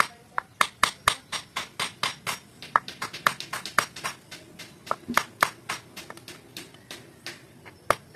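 Claw hammer striking the end of a wooden knife handle to drive it onto the old blade, which stands point-down in a wooden block. Quick, sharp knocks with a short ring, about four a second, fewer past the middle and picking up again near the end.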